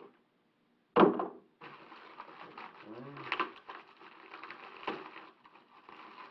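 Cardboard packaging being handled and opened: a sharp knock about a second in, then crackling and rustling of cardboard for several seconds.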